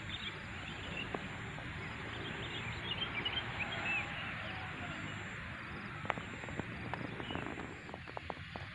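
Birds calling in many short high chirps, mostly in the first four seconds, over steady low background noise of an open field. A few faint sharp clicks come near the end.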